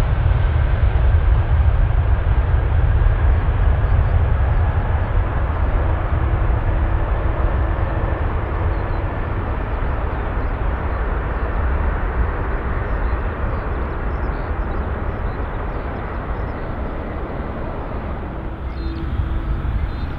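Boeing 787-9 jet engines at takeoff power: a deep, steady rumble that slowly fades as the airliner rolls away down the runway. Near the end it gives way to a quieter, steady jet hum.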